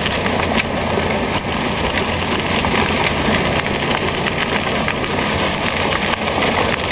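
Vortxrex dryland dredge running: a steady engine-driven pump under a continuous rush of water and gravel, with many small clicks of stones rattling through the suction pipe.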